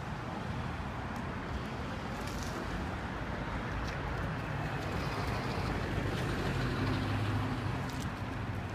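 Street traffic noise: a motor vehicle's engine hum over a steady rumble, swelling about six to seven seconds in and easing off near the end.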